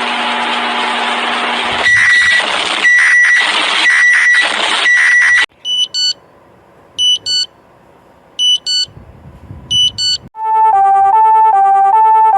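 A sequence of emergency alert alarm tones: a harsh buzzing hiss, then about two seconds in a high tone repeating about once a second over the hiss, then pairs of short high beeps every second and a half over a faint hum. Near the end, a fast two-tone warble that switches pitch several times a second.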